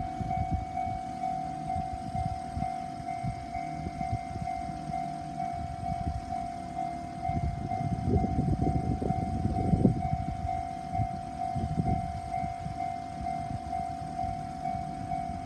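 Japanese level-crossing alarm ringing in a steady, evenly pulsing tone while a local train rumbles past over the crossing. The rumble is loudest about eight to ten seconds in.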